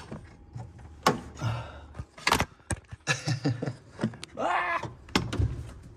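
Scattered knocks and clunks of hand tools and handling in a truck's engine bay, with a few short, muffled grunts in between.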